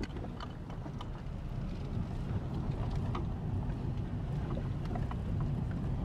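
Car driving along a rutted dirt track, heard from inside the car: a steady low rumble of engine and tyres, with scattered short knocks and rattles from the bumps.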